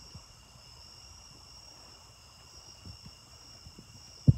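Steady high trilling of crickets, with a few soft low knocks and one louder thump near the end as a German shepherd chews and works at a raw rabbit carcass on a wooden deck.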